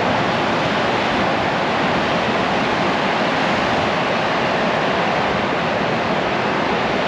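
Steady, even rushing of sea surf mixed with wind on the microphone.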